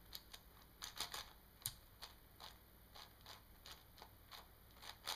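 ShengShou 5x5 puzzle cube being turned by hand: quiet, irregular plastic clicks, several a second, as its layers snap round. It turns really smooth.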